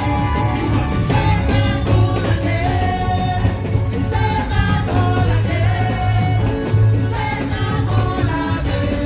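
Live soca: male vocals sung into microphones over loud band music with a heavy, steady bass line.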